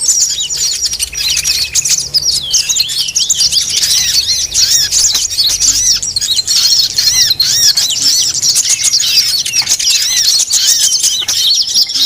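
Dense, busy chorus of many small songbirds chattering and trilling at once, a mixed 'noisy bird' lure recording (suara pikat burung ribut) of the kind played to attract wild small birds. Rapid high, arching notes overlap without a break.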